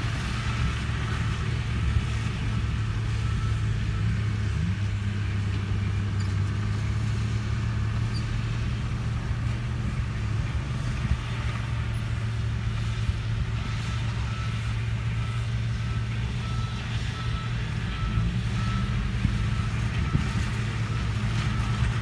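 Diesel engines of crawler bulldozers, a Komatsu D39PX among them, and a loaded dump truck running steadily at a dirt-pushing site. A reversing alarm beeps in a steady run for the first few seconds and again for several seconds in the second half.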